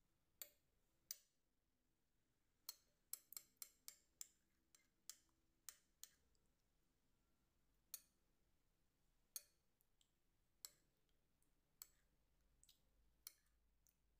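Metal spoon clicking against a ceramic plate as an oil-and-spice marinade is stirred: scattered sharp clicks, with a quick run of them about three to four seconds in.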